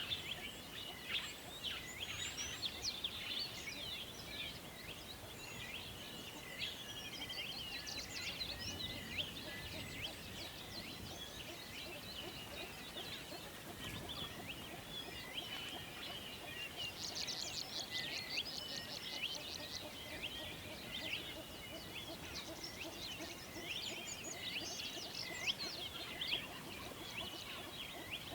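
Birdsong: several birds chirping and whistling at once, with many short overlapping notes and a fast trill a little past halfway.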